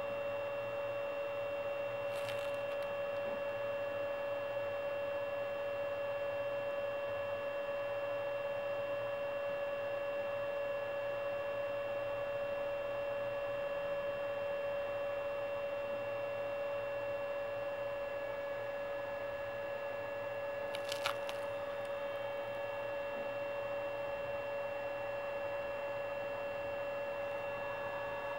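A steady electrical hum with a thin high whine over it, and two faint brief clicks, one a couple of seconds in and one about three quarters of the way through.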